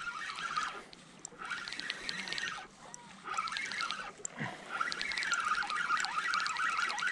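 Small lake waves lapping and gurgling against shoreline rocks, coming in surges with short lulls, then lapping without a break over the last few seconds.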